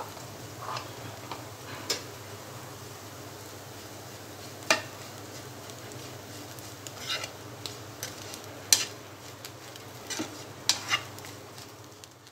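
Fried spine gourd pieces being stirred with a spatula in a nonstick frying pan, with scattered clicks and scrapes of the spatula against the pan. The sound fades out near the end.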